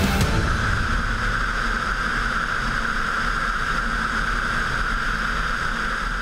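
Air rushing over a sailplane in flight, picked up by a camera mounted on the aircraft: a steady hiss with a low rumble under it.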